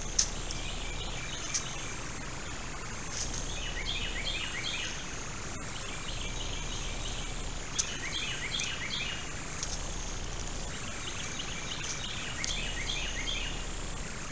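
Woodland ambience: a songbird repeats short trills of quick down-slurred notes every few seconds over a steady high insect drone, with scattered sharp high ticks.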